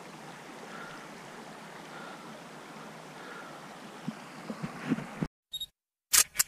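A stream rushing steadily, with a few light knocks about four seconds in. The sound then cuts off suddenly, and a few very short, loud bursts of noise follow near the end.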